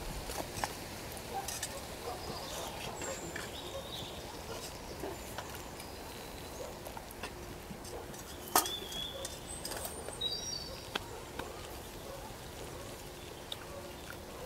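Spoons clinking and scraping against soup bowls while people eat, with a few short bird chirps over a steady outdoor background; one sharper click about two-thirds through.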